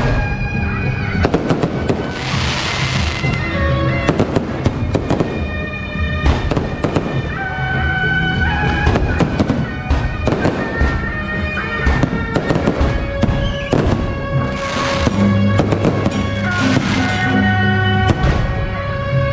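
Fireworks going off in a rapid, irregular series of bangs, with crackling hisses about two seconds in and again near the end. Music with sustained melodic notes plays under them throughout.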